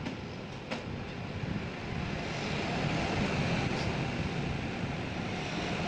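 Steady mechanical running noise, like an engine or motor, growing louder about two seconds in, with a single sharp knock shortly after the start.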